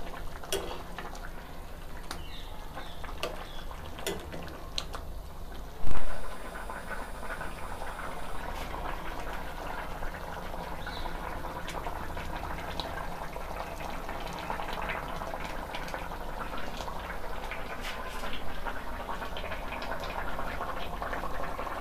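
Fish and ripe-cucumber curry simmering in a kadai on a gas burner, a steady bubbling. In the first few seconds a metal spoon stirring clinks against the pan, and a short loud thump comes about six seconds in.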